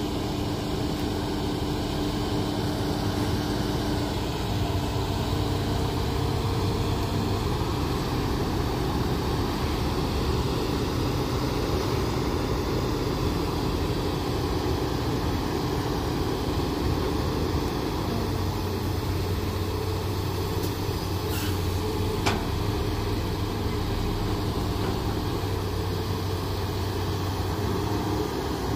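Diesel engines of a Hitachi hydraulic excavator and a dump truck running steadily, with a low hum that shifts in pitch now and then. A single short clank about two-thirds of the way through.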